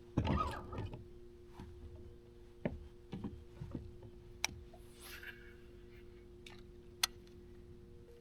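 A swim jig being cast and worked from a bass boat: a noisy whoosh about a quarter second in, then scattered knocks and a few sharp clicks of rod and reel handling, over a steady low two-tone hum.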